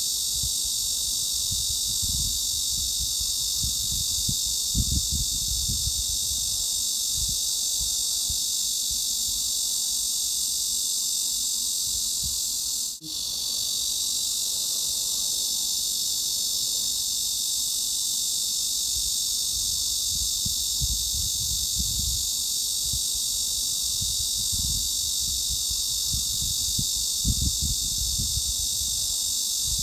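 Steady, dense chorus of cicadas, an unbroken high-pitched buzz, with an uneven low rumble underneath. About thirteen seconds in the sound drops out for a split second and resumes.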